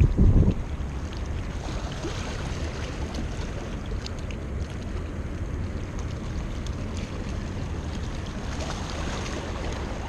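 Wind rumbling on the microphone over a steady wash of sea water, with a louder gust in the first half-second.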